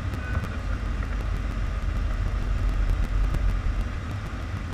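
Steady low rumble of airflow and engine noise inside a Boeing 747's cockpit in flight.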